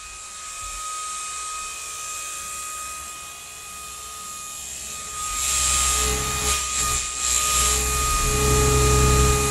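Small electric motor of a battery-powered toy gadget running with a steady high whine and a whirring hiss. About five seconds in it grows louder and rougher with a low rumble, then stops abruptly at the end.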